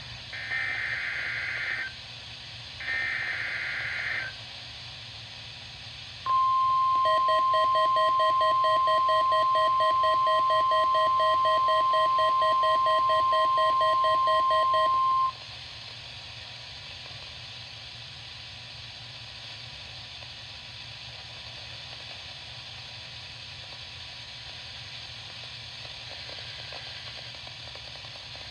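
NOAA Weather Radio Emergency Alert System test: two bursts of the warbling SAME digital header in the first few seconds, then a loud steady alert tone near 1 kHz for about nine seconds with a fast pulsing beep over it. The tone cuts off suddenly and the broadcast falls to steady static hiss, dead air from a failed Required Weekly Test.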